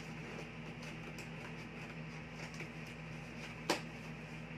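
Quiet rustling and handling of a parcel's packaging as it is opened, with one sharp click a little over three and a half seconds in, over a steady low hum.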